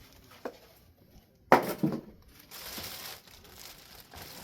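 Molded pulp packaging, like egg-carton material, being pulled off a fan's motor assembly: crinkling and rustling, with a sharp knock about a second and a half in.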